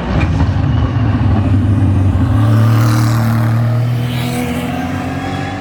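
A GT3 race car's engine passing at racing speed, loud and rising to a peak about halfway through before fading away.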